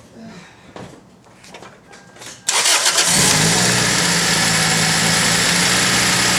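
Toyota Celica's four-cylinder engine cranked by the starter and catching about two and a half seconds in, then settling at once into a steady idle.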